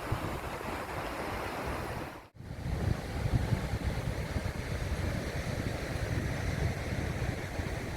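Sea surf washing onto a sand beach, with wind buffeting the microphone as a gusty low rumble. The sound cuts out for a split second a little over two seconds in, as at an edit join.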